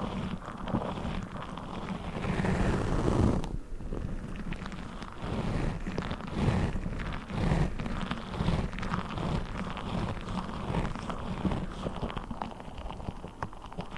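Orbeez water-gel beads handled and squished by hand close to the microphone: an irregular, unbroken run of soft squishing and rustling with many short pulses.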